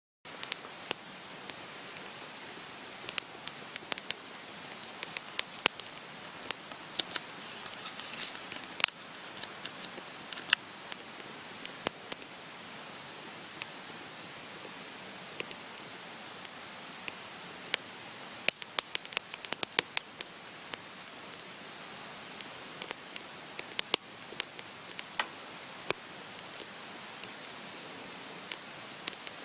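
Wood campfire crackling: irregular sharp pops and snaps, in quick clusters at times, over a steady soft rush of burning.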